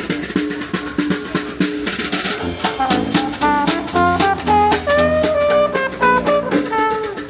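Upbeat background music with a drum kit playing a steady beat under a melody, starting abruptly after a short fade-out of earlier music.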